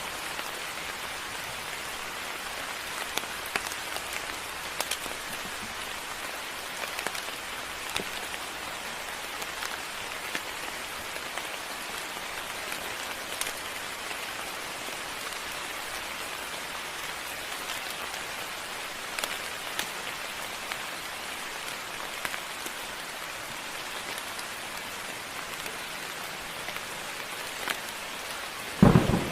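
Steady moderate rain falling, with scattered louder drop hits. A sudden loud clap of thunder breaks in at the very end.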